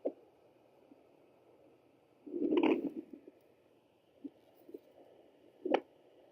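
Sonoline B pocket fetal Doppler hissing through its speaker as the probe is moved over the belly. It picks up scraping thumps and a louder whooshing rumble about two and a half seconds in, with no even heartbeat rhythm.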